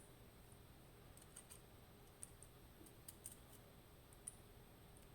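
Faint, scattered light clicks of small metal lock parts being handled: the sliders of a disassembled Dierre New Power lock being moved.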